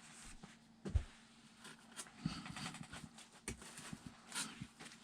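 Light knocks and clicks of toys being handled and set down, with a soft thump about a second in and a few sharper clicks later.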